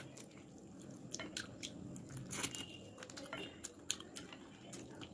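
A person chewing and biting on a chicken leg close to the microphone, with wet mouth noises and scattered sharp clicks; the loudest is about halfway through.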